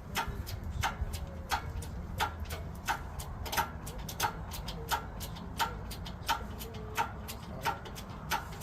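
A regular mechanical ticking, a sharp tick about every 0.7 seconds with fainter ticks in between, over a steady low rumble.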